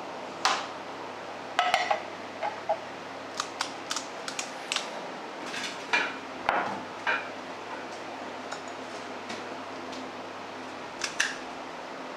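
Kitchenware clinking and tapping on a counter: a ceramic plate, small bowls and a glass mixing bowl being handled, with a spoon against the glass. Short, irregular clinks come thickly over the first seven seconds, then a pause, then two more clinks near the end.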